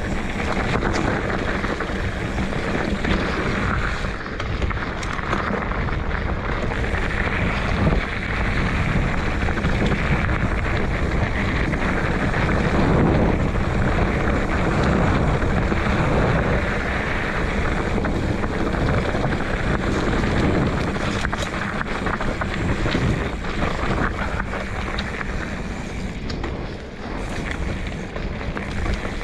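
Steady wind rushing over the microphone with a low, uneven rumble from travelling along a dirt trail.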